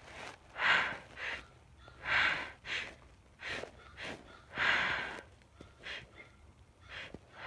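A woman's short, sharp breaths and sniffs through nose and mouth, repeating about every half second to second. Three stronger ones stand out about a second and a half apart.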